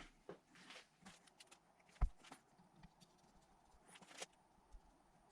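Faint clicks and light metallic handling noises from hand tools at a bench vise, as a thread tap and tapping fluid are set to a drilled hole. There is one sharper knock about two seconds in and a short cluster of clicks near four seconds.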